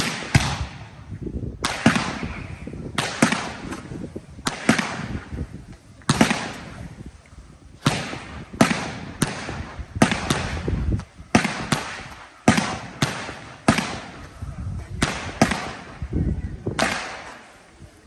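Fireworks display: aerial shells bursting in a rapid string of loud bangs, roughly one a second and sometimes two close together, each trailing off in a short echo.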